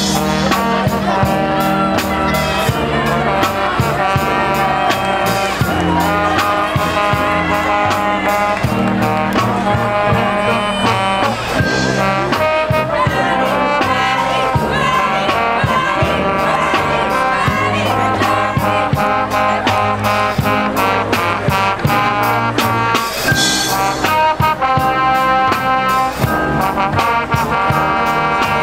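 Marching band playing: sousaphones, trumpets and other brass holding loud chords over a steady beat.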